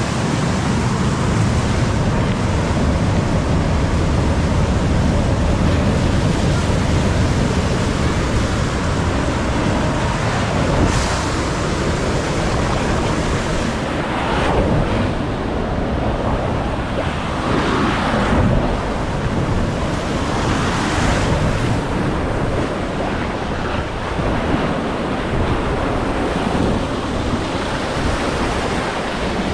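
Water rushing and splashing along a water-park tube slide, with wind buffeting the microphone. A few louder surges of spray come toward the middle.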